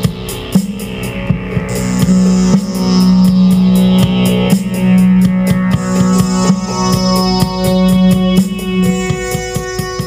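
Instrumental intro music with a steady drum beat and electronic keyboard.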